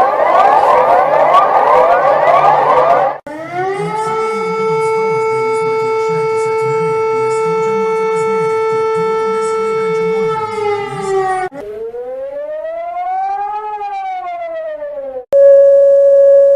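A series of emergency warning signals played one after another. First comes a rapidly repeating rising sweep. Then a siren winds up to a steady pitch, holds for about seven seconds and drops, and is followed by one slow rise and fall in pitch. Near the end a loud steady alert tone begins.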